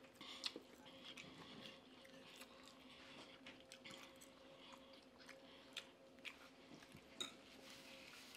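Faint chewing and eating sounds of people at a meal, with scattered soft clicks of forks and mouths, over a steady low hum.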